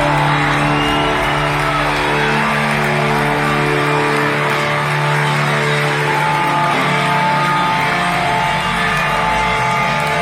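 Live hard-rock band heard over a stadium PA, with electric guitars holding long sustained notes and chords.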